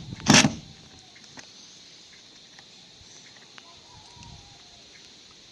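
A single hammer blow just after the start, then faint clucking of chickens in the quiet that follows.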